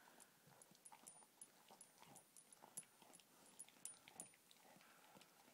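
Collie–shepherd mix dog chewing a raw rabbit rack: faint, irregular crunches and clicks of teeth on bone.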